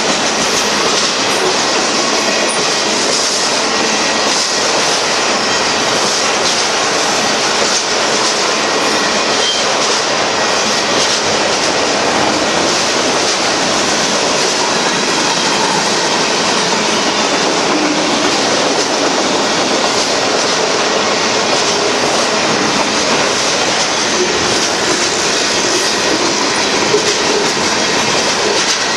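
Freight train of autorack cars and boxcars rolling past close by: a steady, unbroken noise of steel wheels running on the rails.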